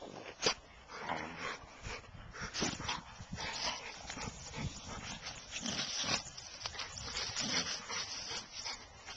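American Staffordshire terrier snuffling and rooting at the ground while hunting mice: irregular short noisy sniffs and rustles, with one sharp click about half a second in.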